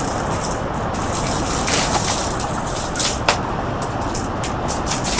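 Plastic packaging of a sealed parcel rustling and crinkling as it is opened by hand, in several short crackles over a steady rushing noise.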